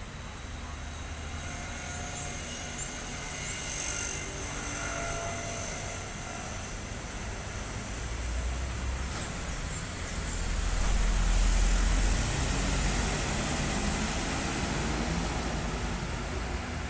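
Intercity coach bus (Gunung Harta, Adiputro Jetbus 3+ body) running slowly as it approaches and passes close by. The engine and tyre rumble grows to its loudest about two-thirds of the way through, then eases as the bus pulls away.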